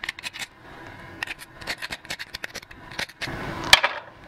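A knife blade scraping barnacles and grit off mussel shells: a rapid run of short scraping strokes, with one sharper click near the end.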